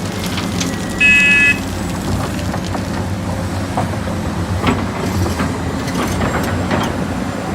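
A heavy truck's engine running steadily, with a short, loud, high-pitched beep about a second in.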